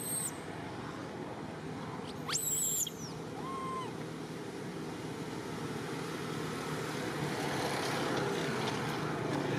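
Two short, very high-pitched squealing calls, one right at the start and a louder one about two and a half seconds in, over a steady rushing background noise that grows louder toward the end.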